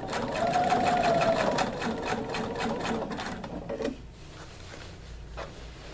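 Domestic sewing machine stitching slowly through a thick embroidered patch, the needle clicking rapidly over a motor hum that rises a little and then eases off. It stops about four seconds in.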